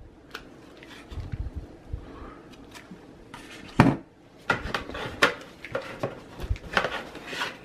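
Packaging handled by hand: a clear plastic CPU clamshell and cardboard boxes, with soft rustling, one sharp knock about four seconds in, then a run of cardboard scrapes and taps as a hand reaches into the retail box for the inner cooler box.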